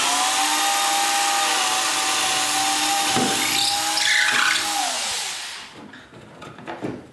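Handheld power drill boring a hole through a wooden workpiece, its motor running at a steady whine. It winds down with falling pitch about five seconds in, followed by a few light knocks.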